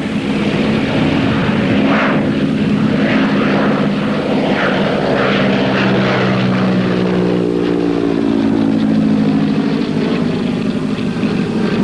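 Propeller aircraft's piston engine running steadily, its note dropping in pitch about two-thirds of the way through as the plane passes.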